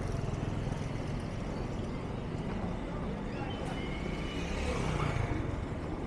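Busy street traffic: motorcycle engines running as bikes ride close past, loudest about five seconds in, over a steady low rumble.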